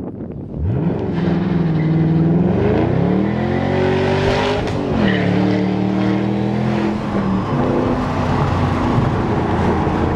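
2008 Shelby GT500KR's supercharged 5.4-litre DOHC V8, heard from inside the cabin, accelerating hard. The revs rise sharply about half a second in and climb again, drop at a gear change about five seconds in, then hold steady.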